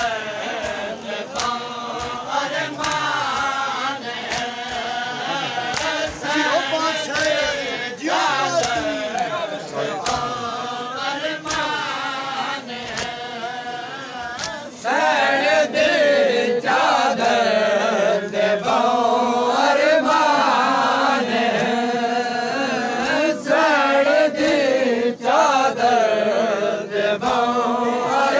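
Many men's voices chanting a noha, a lament for the martyrs of Karbala, in chorus, over a steady rhythm of hand-on-chest matam strikes. The chanting gets louder about halfway through.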